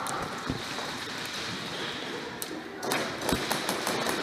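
A few dull thumps and light taps over a noisy background, followed about three seconds in by a run of quick sharp clicks.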